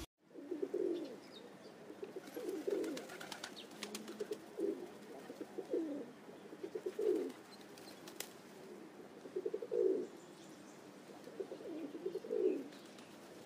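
A dove cooing in short, low phrases every second or two. Faint chirps of smaller birds come in between.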